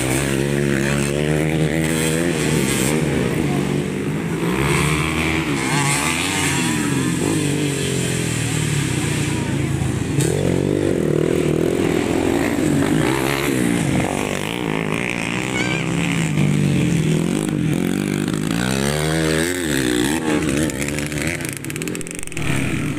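Modified underbone racing motorcycles revving hard, their engine pitch rising and falling as they accelerate, shift and back off. Several machines are heard at once, overlapping.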